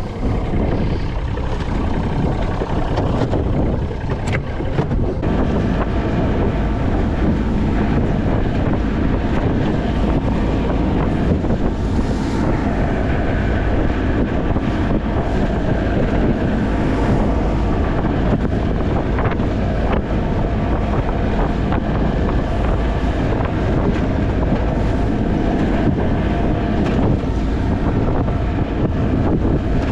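Boat's outboard motor running steadily under way, with heavy wind buffeting the microphone.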